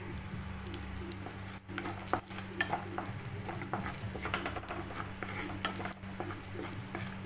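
Cashews and raisins sizzling in hot ghee in a non-stick kadai, stirred with a wooden spatula that scrapes and taps the pan in many short, irregular clicks.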